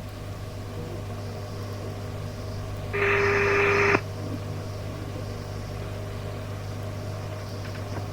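Radio receiver on an open channel: a steady low hum and faint hiss, broken about three seconds in by a one-second burst of static with a steady tone, starting and stopping abruptly as a transmission keys up with no voice.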